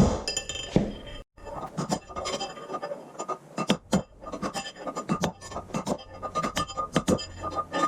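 Hammer striking a steel punch against the inner bearing race and seal sleeve of a tractor front wheel hub to drive them out. The metal taps come irregularly, several a second, and ring briefly.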